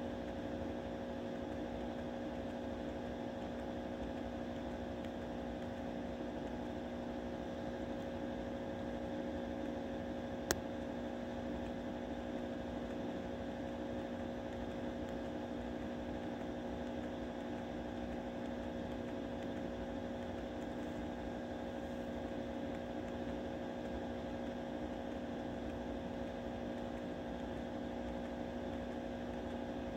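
Steady hum with a few fixed tones over a low noise floor, and a single sharp click about ten seconds in.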